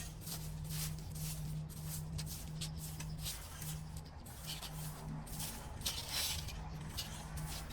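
Debris being cleared from a clogged street drain in floodwater: a run of short rustling scrapes and splashes over flowing water.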